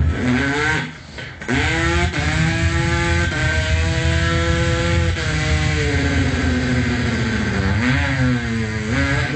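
Dirt bike engine imitated with the voice: a buzzing engine note that revs up briefly, breaks off about a second in, then revs up again, holds for a few seconds and drops away, with one more rise and fall near the end.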